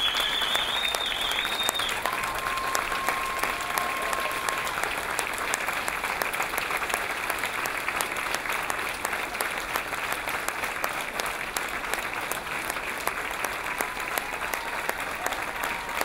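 Large audience applauding steadily, a dense even clapping for the award winners.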